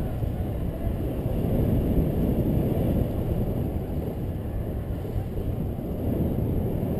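Wind rushing over the microphone of a paraglider pilot's camera in flight: a steady low rumble.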